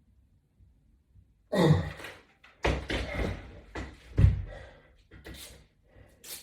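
A series of thumps and knocks with rustling between them, the heaviest thud about four seconds in and a sharp click near the end.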